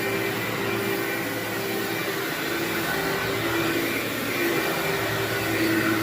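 Vacuum cleaner running steadily on carpet: an even rushing noise over a motor hum whose pitch wavers slightly.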